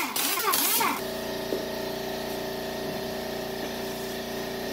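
An air impact wrench on a wheel lug nut gives a short, loud burst of air-tool noise. About a second in, this gives way to a steady mechanical drone with a level hum, which suggests the tool is struggling against a lug nut that is torqued down tight.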